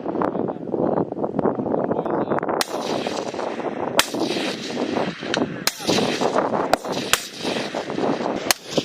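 Gunshots on a military live-fire range: about six sharp single reports at uneven intervals, over a steady rough rushing noise.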